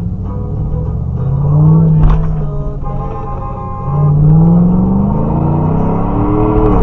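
Car engine revving, its pitch climbing and easing off once, then climbing again for a few seconds before dropping away sharply near the end, with a single sharp click about two seconds in.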